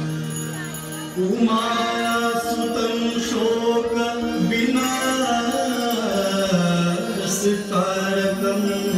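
Hindu devotional aarti music: a chanted, sung melody with held and gliding notes.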